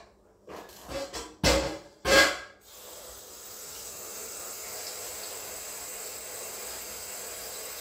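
Two sharp knocks, then a steady hiss that lasts about five seconds.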